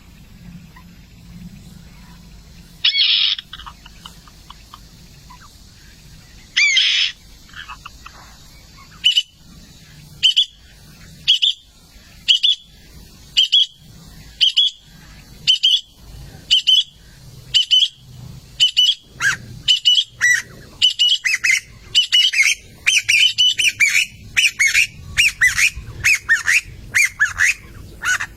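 Birds calling: two harsh squawks a few seconds apart, then a run of short, sharp calls that come faster and faster and overlap near the end.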